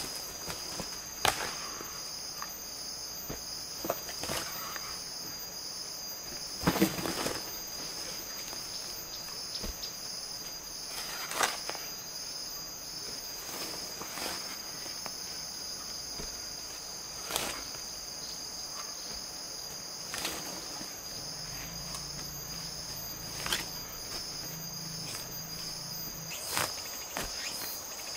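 Steady high-pitched chirring of insects, with a sharp knock or tap every few seconds standing out above it.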